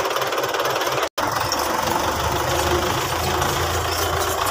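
Belarus tractor's diesel engine running steadily under way, with a brief dropout of all sound about a second in.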